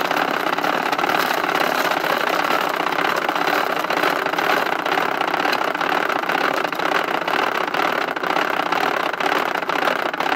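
Grinder of a 1993 Mattel McNugget Snack Maker toy running steadily, grinding crispy rice cereal and spraying the crumbs over bread nuggets in its plastic bin to coat them. The grinding is loud and even, with no breaks.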